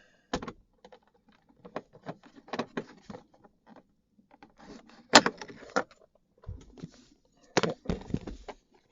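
Screwdriver and screws clicking and rattling against the plastic dashboard as an instrument cluster is screwed back in by hand: scattered sharp clicks, the sharpest about five seconds in, and a group of heavier knocks near the end.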